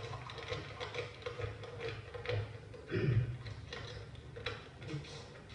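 Steady clock-like ticking, about three ticks a second, over a low hum, heard through a television speaker as exam-results envelopes are opened.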